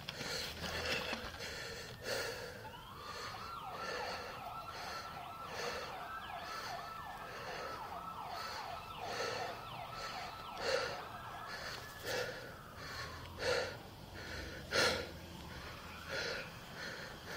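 An emergency vehicle siren rises about three seconds in, holds a high wavering tone, and falls away near the end. Underneath it, a person breathes hard in repeated breaths close to the microphone.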